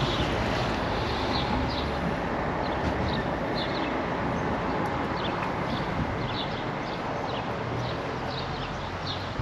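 Steady background noise with many short, high chirps scattered throughout, a few each second.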